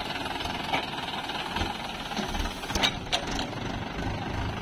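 Mahindra Yuvo 575 DI tractor's four-cylinder diesel engine running steadily, with a couple of sharp knocks about three seconds in.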